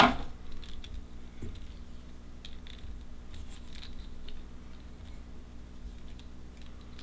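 Faint ticks and rustles of a bobbin wrapping thread and gold flash onto a hook in a fly-tying vise, opening with one sharp knock, over a low steady hum.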